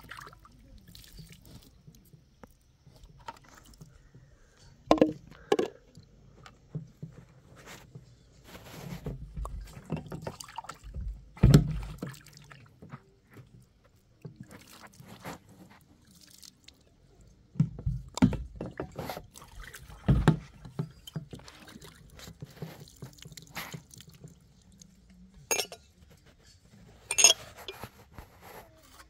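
Small glass tea glasses being rinsed with water poured from a plastic jerrycan, with scattered clinks and knocks as the glasses are handled and set down on a tray.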